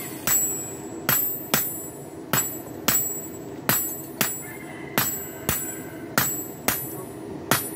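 Sharp ringing strikes, metallic in character, repeating steadily in an uneven short-long rhythm of about three strikes every two seconds, over a low steady hum.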